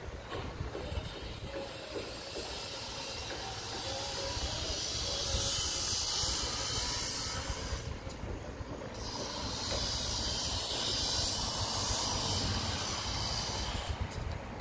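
Construction-site noise: a steady hiss over a low rumble, swelling for several seconds, dipping briefly about halfway through, then swelling again.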